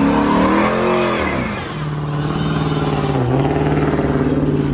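A car engine revved hard, rising and falling, then held high and steady with a brief dip about three seconds in, as in a burnout.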